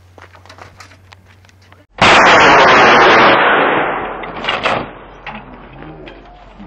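Ballistic recovery parachute rocket firing out of a light aircraft fuselage: a sudden, very loud rocket blast about two seconds in, holding at full force for over a second, then fading away over the next two seconds.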